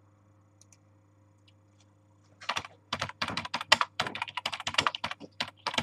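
Typing on a computer keyboard: a quick, uneven run of key clicks that starts about two and a half seconds in.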